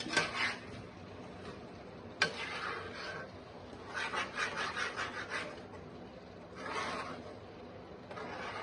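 Spatula stirring and scraping chili sambal paste in a frying pan in bursts of about a second, with two sharp knocks against the pan, one at the start and one about two seconds in. The paste is being sautéed until it loses its raw smell.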